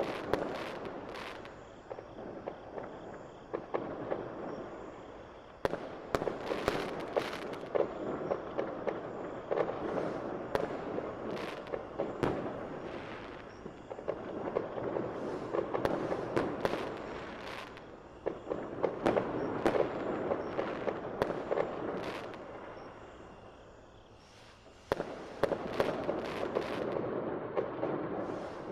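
Fireworks show: a continuous rumble of bursts with many sharp crackling cracks over it, swelling and fading in waves. It dies down a little past twenty seconds in, then a fresh volley starts suddenly near the end.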